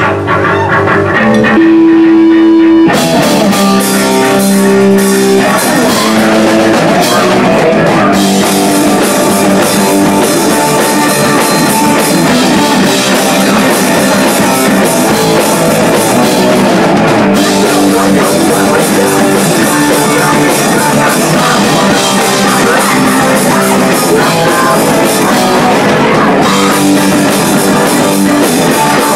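Punk rock band playing live: distorted electric guitar, bass and drum kit. A few held guitar notes open it, then the full band comes in about three seconds in and plays on without a break.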